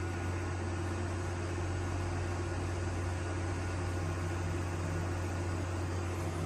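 Steady low hum of coin-laundromat machinery running, a constant drone with a fainter steady tone above it and no change in level.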